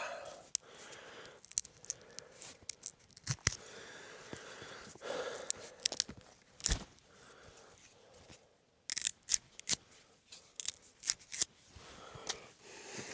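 A block of dry instant ramen noodles being broken apart and pushed down into a Jetboil pot: scattered sharp snaps and crunches, with a quieter pause about two-thirds of the way through.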